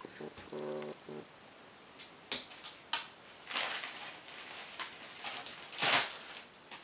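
A greyhound tearing magazine paper with its teeth: a run of sharp rips and crinkling, the loudest about six seconds in. A short low hum comes first, in the opening second.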